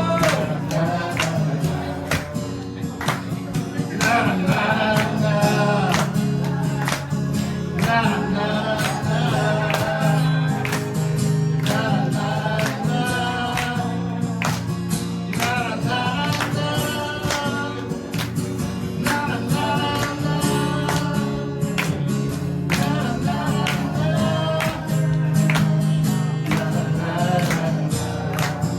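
A man singing a song to guitar accompaniment, the singing running on over steady low notes and strumming.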